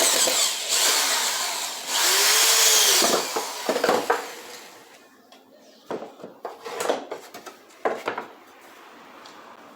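A handheld power tool running on wood for about three seconds, then winding down, followed by a few sharp knocks of wood on wood.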